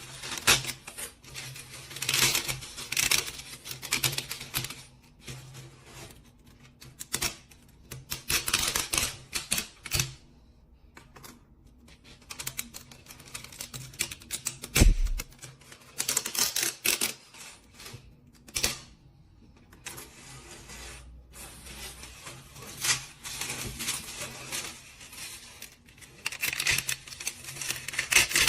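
Bursts of rapid, dense mechanical clicking and clattering, each lasting a second or two with quieter gaps between, over a faint steady hum. There is one low thump about halfway through.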